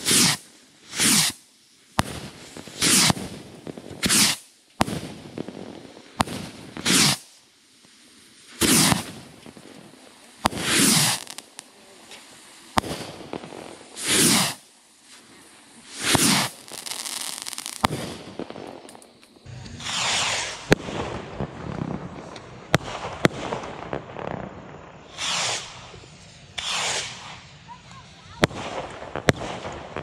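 Bottle rockets firing from a rack in quick succession, each launch a short rushing whoosh that drops in pitch, about one every second or two. Sharp pops of rockets bursting overhead are scattered between them, more often in the second half.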